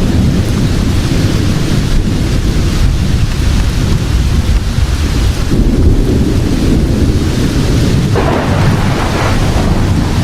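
Thunderstorm: continuous deep rolling thunder under steady rain hiss. About eight seconds in the sound suddenly turns brighter and fuller.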